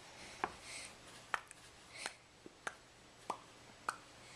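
Baby being spoon-fed yogurt: about six short, sharp clicks and smacks, spaced roughly half a second to a second apart.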